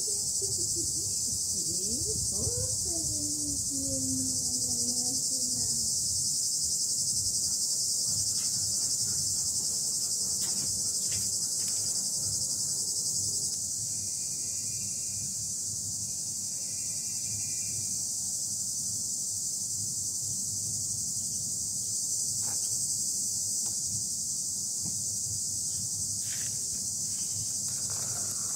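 Dense, steady insect chorus: an unbroken high-pitched hiss over a low background rumble. A drawn-out, falling vocal call sounds in the first few seconds.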